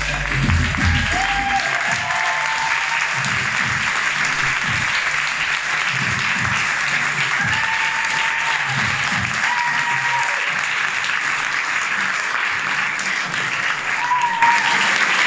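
Audience applauding steadily, over background music with a beat.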